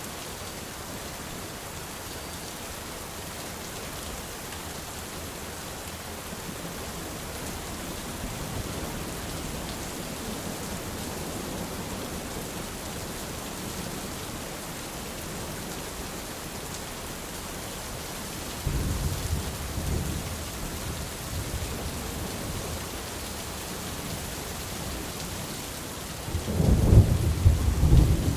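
Steady summer rain falling in a forest, with low thunder rumbling twice: a roll about two-thirds of the way through and a louder one near the end.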